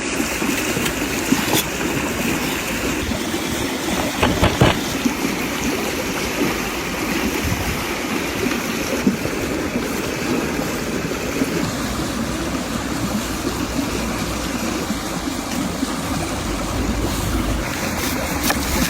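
Steady rushing of flowing water, with a few short knocks about a second and a half in and again around four and a half seconds.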